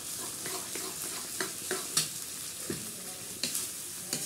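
Metal spatula stirring spinach into frying masala in a metal karahi: a steady sizzle, broken every half second or so by scrapes and knocks of the spatula against the pan.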